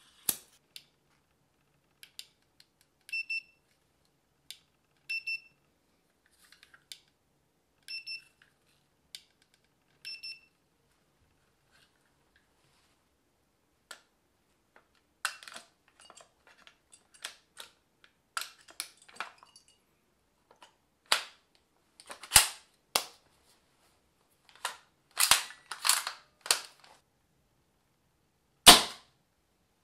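Metallic clicks of a gas can nozzle pressed again and again onto an airsoft magazine's fill valve, pairs of ringing clicks every two to three seconds with no gas flowing, since the foreign-made valve won't take the gas at all. Then clicks and rattles of the magazine being seated and the bolt being worked on an S&T PGM Mini Hecate .338 gas airsoft rifle, and several sharp shots in the last third, the loudest near the end.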